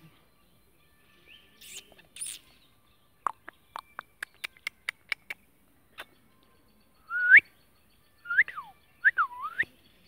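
Rose-ringed parakeet making short whistled calls that glide in pitch: one rising call about seven seconds in, then a few quick calls that rise and dip near the end. Before them, a quick run of about a dozen sharp clicks in the middle.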